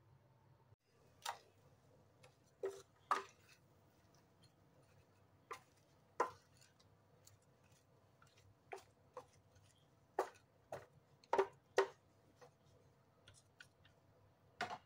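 Kitchen utensils clicking and knocking against a metal baking tray and a ceramic bowl while roasted cauliflower and broccoli are moved. There are about fifteen sharp clicks at irregular intervals over a faint steady hum.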